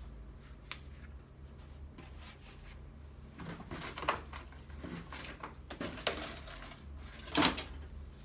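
Hands rummaging through a box of mixed small objects: scattered clinks, rustles and knocks, the loudest a knock about seven seconds in.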